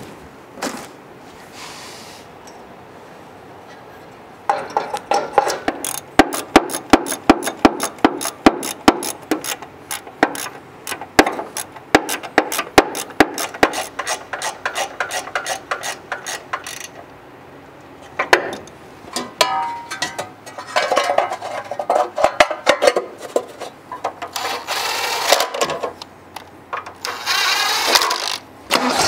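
Mechanical tool work on a car: long runs of quick, irregular, sharp clicks and taps, then stretches of rattling and scraping near the end.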